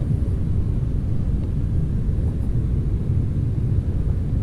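Wind buffeting the camera microphone: a steady, fluttering low rumble.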